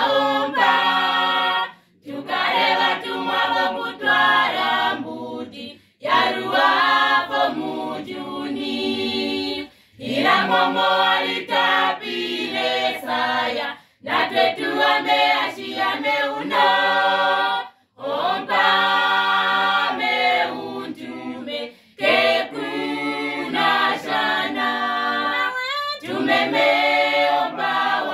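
Mixed youth choir singing a cappella in harmony, in phrases of about four seconds with a short breath between each.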